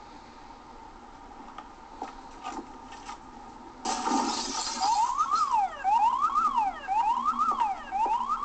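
A sudden loud crash about four seconds in, then an electronic alarm siren starts wailing, sweeping up and down in pitch a little faster than once a second.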